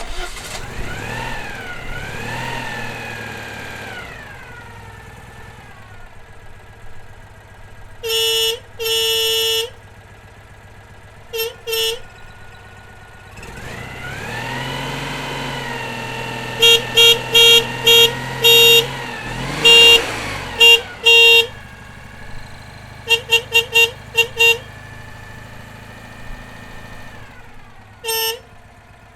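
Citroën 2CV horn honking in groups: two longer blasts, a pair of short toots, a run of quick toots, then five rapid toots and a last single one near the end. Under and between the honks the car's air-cooled flat-twin engine runs, revving up and falling back a few times.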